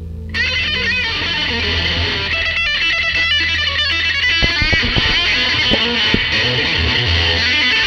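Gibson EB-0 electric bass played on its neck Filter'Tron pickup through a Seymour Duncan Studio Bass Compressor, holding a steady low line under a blues-rock lead electric guitar. The guitar comes in about a third of a second in with bent notes.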